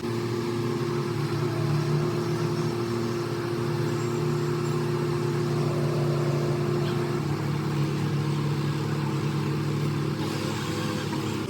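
A machine running steadily with a low hum, its pitch shifting slightly about seven seconds in.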